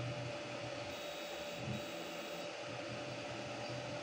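Flyingbear Ghost 5 FDM 3D printer running mid-print: steady whir of its cooling fans with a constant whine, under a low motor hum that rises and falls as the print head moves.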